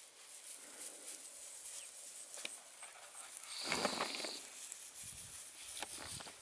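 Puppies' paws pattering and rustling through dry grass as they run and play, with a louder scuffle of rustling about halfway through, when two of the puppies tussle.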